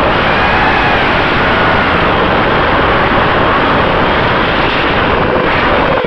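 FPV quadcopter's motors and propellers, recorded by the drone's onboard camera: a loud whine whose pitch wavers up and down with the throttle, over a steady rush of noise.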